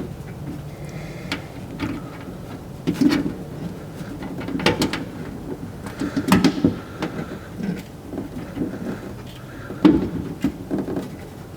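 Irregular clicks, knocks and rattles of hands and small parts working inside a steel car door shell while the mirror's 1/4-20 mounting bolts are started by feel through an access hole.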